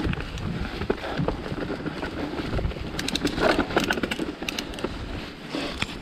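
Mountain bike rolling along a dirt trail thick with dry fallen leaves: tyres crunching and crackling through the leaves, with sharp clicks and rattles from the bike, most dense about three to four and a half seconds in. A low wind rumble on the microphone runs under it.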